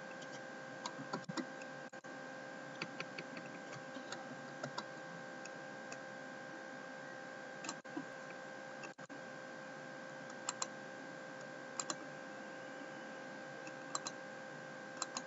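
Computer mouse clicking sparsely, single and paired clicks every second or two, as flower brush stamps are placed in Photoshop. A faint steady electrical hum lies underneath.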